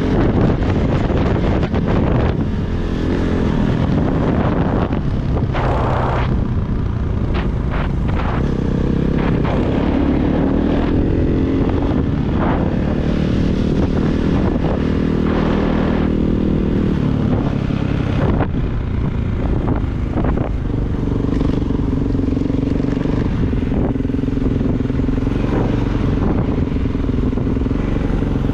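Kawasaki KX450 single-cylinder four-stroke dirt bike engine running under way, its pitch rising and falling as the throttle is worked, then holding steadier in the last third.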